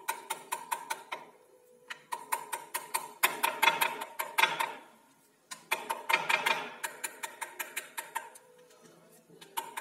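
Steel fork pricking rolled dough discs on a marble rolling board, its tines tapping rapidly against the stone, several taps a second. The taps come in runs with two short pauses.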